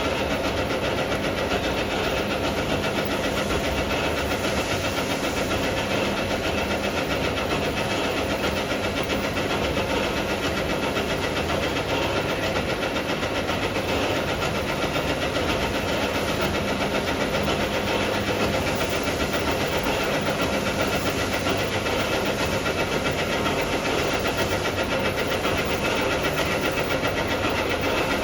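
Automatic can washing machine running: a steady, even mechanical noise with a faint motor hum, unchanging throughout.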